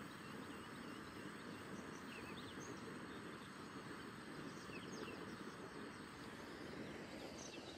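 Faint outdoor ambience: small birds calling with short, quick chirps over a steady rushing background noise.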